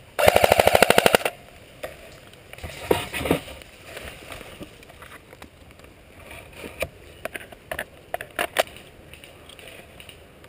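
Airsoft electric rifle, a Magpul Masada PTS, firing one rapid full-auto burst of about a second, a fast even clatter of shots. Scattered sharp clicks and knocks follow.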